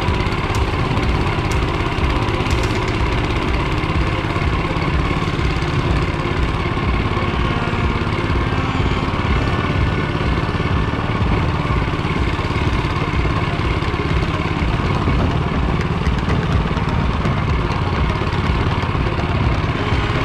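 Walk-behind tractor's small single-cylinder engine running steadily as it pulls the machine along, with an even, close-up low pulsing beat.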